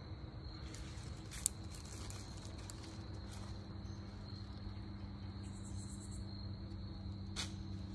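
Crickets trilling in a steady high chorus over a low steady rumble, with two sharp clicks, one about a second and a half in and one near the end.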